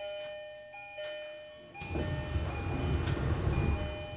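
Tokyo Metro Yurakucho Line station departure melody: a chime tune of steady bell-like notes changing about once a second. A low rumble swells in under it from about two seconds in.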